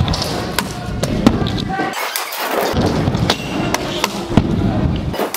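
Stunt scooter wheels rolling with a low rumble over a wooden skatepark ramp, with several sharp clacks and thuds from the wheels and deck hitting the ramp. The loudest hit comes about four seconds in.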